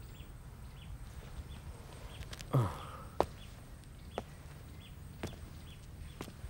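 Slow footsteps on a hard floor, a few soft knocks about a second apart, over quiet room tone, with a short sliding sound falling in pitch just before them.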